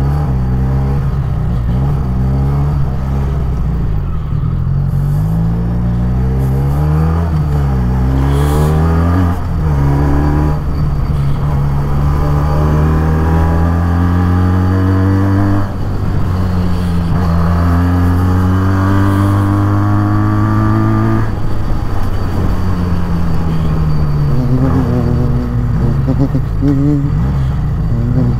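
Benelli 302S motorcycle's parallel-twin engine under way, its pitch climbing as it accelerates and dropping sharply at each of several upshifts, then falling as it slows near the end.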